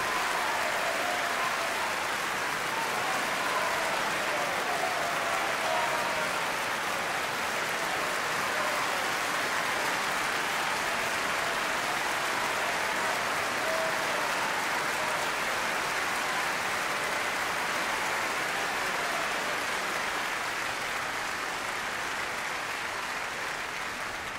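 Large concert audience applauding steadily, with a few voices calling out over the clapping in the first several seconds.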